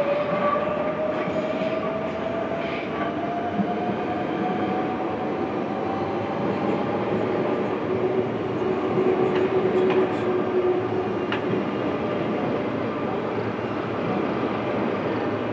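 Electric passenger trains running over the points of a large station throat: a steady rumble of wheels on rail, with an electric motor whine rising in pitch over the first several seconds, then a lower hum for a few seconds and a few sharp clicks.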